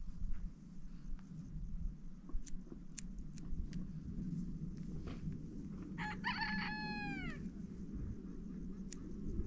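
A rooster crows once about six seconds in, a single call of about a second and a half that holds its pitch and then falls away at the end. Sharp clicks of hair-cutting scissors snipping are heard now and then.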